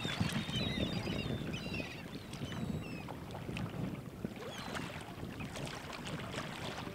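Outdoor wind ambience: a steady low rumble of wind on the microphone, with small birds chirping high and quick during the first two seconds or so.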